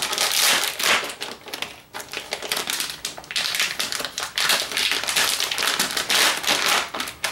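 Clear plastic packaging bag crinkling and rustling as it is handled and opened by hand, a dense crackle of small clicks that continues, swelling and easing, throughout.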